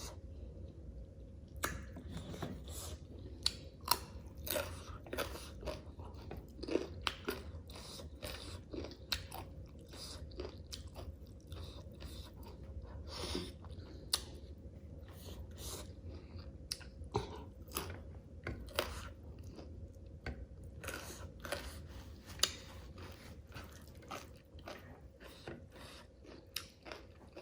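A person chewing and biting food close to the microphone: irregular wet clicks and crunches, several a second, with pauses between mouthfuls.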